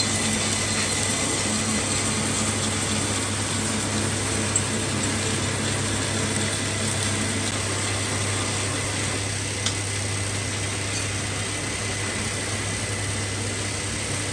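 Metal lathe running steadily: a constant motor hum under a broad hiss, with two short sharp clicks, one about four and a half seconds in and one near ten seconds.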